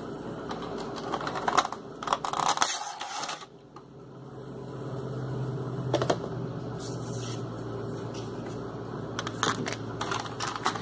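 Thin clear plastic packaging crinkling and crackling as it is handled, with scattered sharp clicks, while a vinyl figure is worked out of it.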